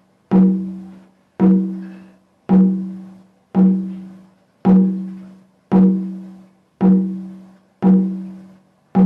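Drum beaten in single, evenly spaced strokes about once a second, about nine in all. Each stroke rings with a low pitched tone that dies away before the next. It keeps a slow pulse meant to mimic a heartbeat for meditation.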